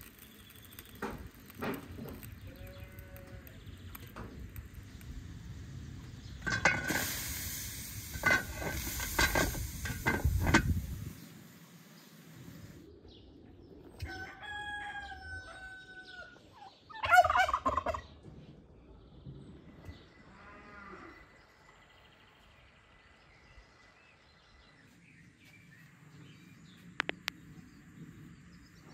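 About halfway through, a long drawn-out call is followed at once by a domestic turkey tom's loud, rapid rattling gobble, with a fainter, shorter pulsed call a few seconds later. Before that, starting about seven seconds in, there are a few seconds of loud rustling noise.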